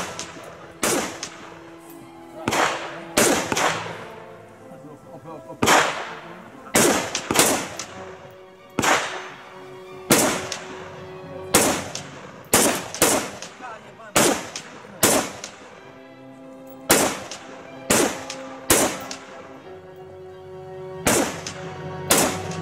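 Rifle shots fired from a line of shooting benches, about two dozen sharp reports at irregular intervals, roughly one a second, each with a short echo.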